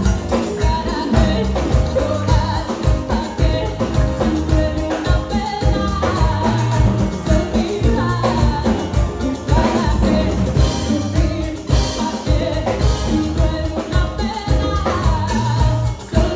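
Live Cuban music: a woman singing into a microphone over keyboard and drum kit, with a steady beat.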